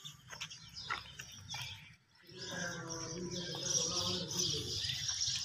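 Outdoor birdsong: a dense chorus of small birds chirping comes in about two seconds in, over a low steady rumble. Before it there are only a few light clicks.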